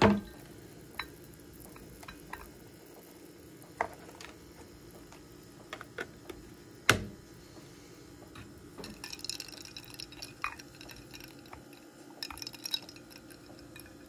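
Scattered small clicks and ticks of ice cubes cracking and settling in a ceramic mug of apple cider, with one louder knock about seven seconds in. A faint steady hum lies underneath.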